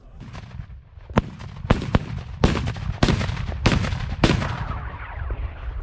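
Black-powder Böller salute charges set on the ground, firing one after another: about seven sharp bangs in a ragged sequence roughly half a second apart, starting about a second in and ending a little past four seconds.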